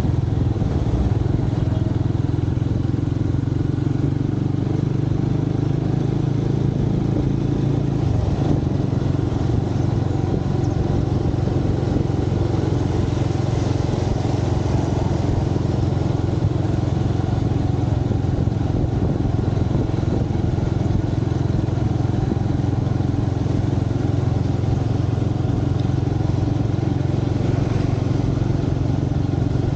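Motorcycle engine running steadily under way through city streets, heard from on the bike, with road and wind noise; the engine note shifts about eight seconds in.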